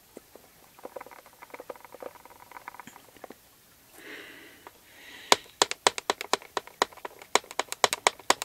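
A hand-carved maple wooden stamp knocking and clicking against paper and the tabletop as it is pressed and handled. First come soft, scattered clicks; then, from about five seconds in, a quicker and louder run of sharp taps. A soft breath comes at about four seconds.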